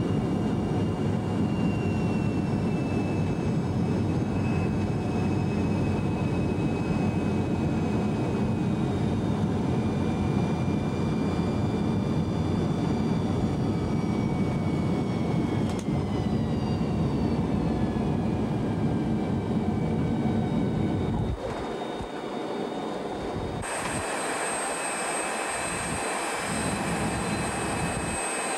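Airliner engines heard from inside the cabin as the plane rolls along the ground after landing: a steady rumble with whining tones that slowly fall in pitch. About 21 seconds in the sound drops suddenly to a quieter aircraft noise with a high, steady whine.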